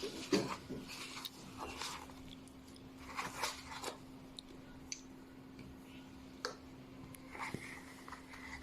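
Scattered, irregular clicks and rubbing handling noises, a cluster of them a few seconds in, over a faint steady hum.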